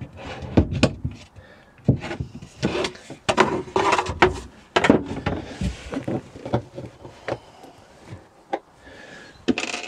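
Thin wooden divider board knocking, clicking and scraping against the wooden panels of a storage compartment as it is worked into place: a string of irregular knocks with some rubbing in between.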